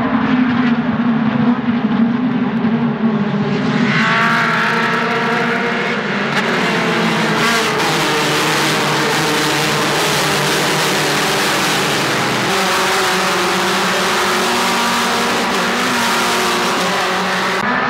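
A pack of Mazda MX-5 Cup race cars' four-cylinder engines running hard at high revs as the field passes, loud enough to carry a headphone warning. About four seconds in the sound thickens into many overlapping engine notes as more of the pack comes through.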